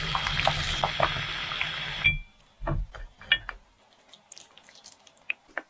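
Water at a rolling boil bubbling in a small pot, with scattered pops, as taro balls are tipped in from a spoon. It cuts off suddenly about two seconds in, leaving only a few faint clicks.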